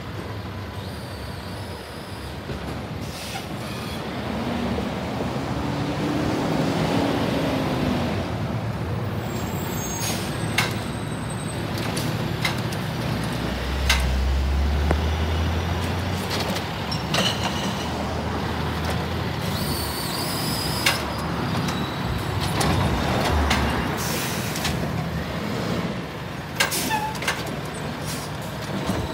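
Freightliner M2 106 garbage truck with a Heil Rapid Rail automated side loader on its collection route: the diesel engine runs steadily, with air brake hisses and several sharp clanks. A car passes close by about halfway through with a loud low rumble.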